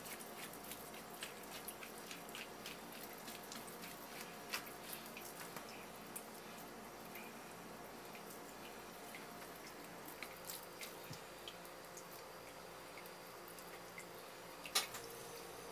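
Metal spoon scraping raw tuna meat off the bones of a tuna collar: soft wet scraping with many small scattered clicks, and one sharper click near the end.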